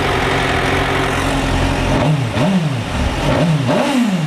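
2004 Suzuki GSX-R750's inline-four engine on its stock exhaust, idling steadily, then revved in about three quick blips from about halfway through, each rising and falling in pitch. The engine runs cleanly and sounds very good.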